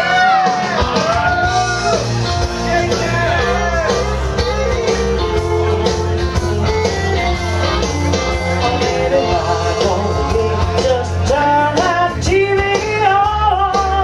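A song with a singing voice over a steady bass line, played for a stage act.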